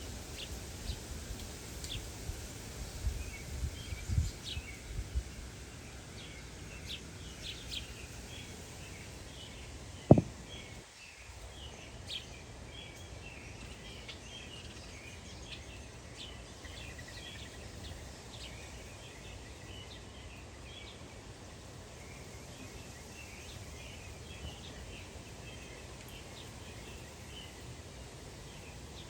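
Many small songbirds chirping constantly in a busy chorus. There are low thumps in the first few seconds and a single sharp knock about ten seconds in, the loudest sound here.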